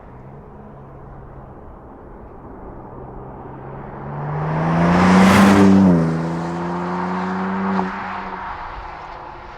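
BMW M4 Competition's twin-turbo 3.0-litre straight-six accelerating past. The engine note rises and swells to its loudest about five seconds in, then drops in pitch and fades as the car moves away.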